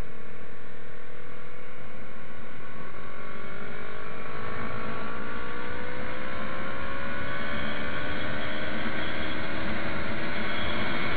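Yamaha MT-03 motorcycle riding at speed, its engine note rising slowly as it gains speed, over a steady rush of wind noise.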